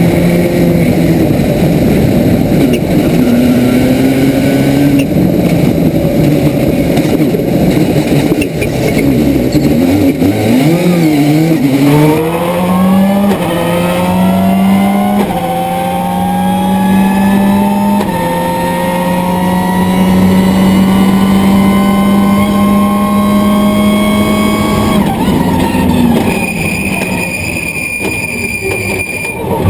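Subaru Impreza S11 WRC's turbocharged flat-four engine driven hard on a rally stage, heard on board: uneven and wavering at first, then accelerating steeply about twelve seconds in with quick upshifts, held at high revs for about ten seconds, and easing off near the end with a steady high whine.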